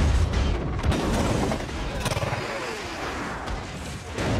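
Film sound effects of a high-speed train crashing: a deep rumble under dense grinding and scraping of metal, loudest at the start and easing slightly toward the end.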